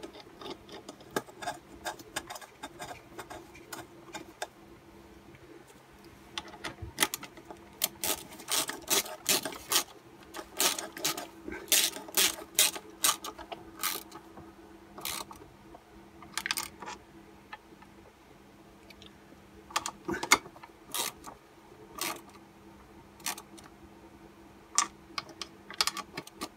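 Small ratchet and socket clicking in bursts as a carburettor mounting nut is wound down and tightened on a Stihl BG86 two-stroke blower.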